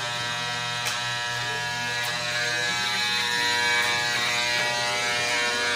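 A steady mechanical buzz made of many even overtones, like a motor or small engine running at constant speed. There is a faint click about a second in and another about two seconds in.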